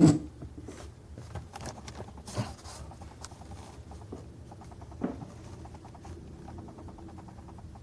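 Small clicks, taps and scuffs of a metal-and-plastic diecast scale model being handled and turned, with a sharper click at the start and two more about 2.5 and 5 seconds in.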